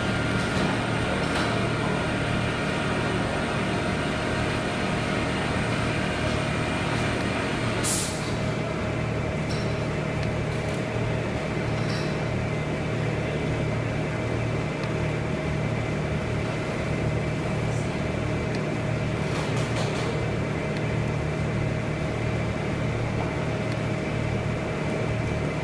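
A steady low mechanical hum with a faint high steady tone over it, and a short click about eight seconds in.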